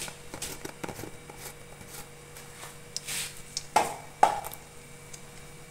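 Mustard seeds popping and crackling in hot oil: scattered sharp pops, a brief sizzle about three seconds in, and two louder pops around four seconds in.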